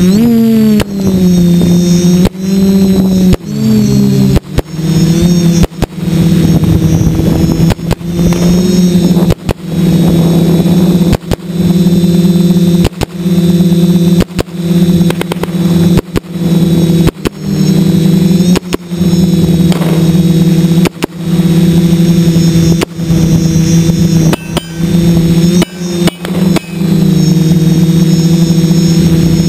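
DJI 450 quadcopter's motors and propellers humming loudly on the onboard microphone, the pitch wavering with throttle changes in the first few seconds and then holding steady. Sharp cracks cut through every second or two, each followed by a brief dip in the hum.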